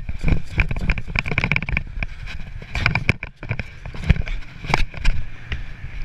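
Running footsteps on a paved path, heard through a camera carried by the runner, as a string of uneven thumps and clicks over a low rumble of wind and handling noise.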